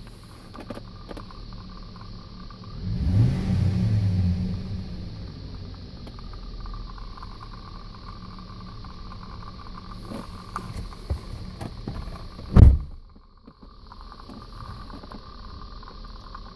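A Crux running with a steady high-pitched whine. About three seconds in, the engine revs briefly. Near the end, a single loud knock is heard, and the level drops for a moment after it.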